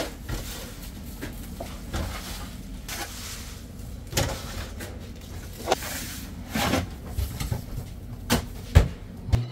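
Metal sheet pans of bun dough sliding onto the rails of a bakery rack cabinet, with scattered clanks and knocks over a steady kitchen hum. The loudest knock comes near the end, as the cabinet's glass door is swung shut.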